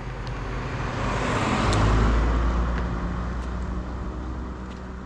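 Something fast passing close by: a rushing whoosh that swells to a peak about two seconds in, then fades away, over a steady low hum.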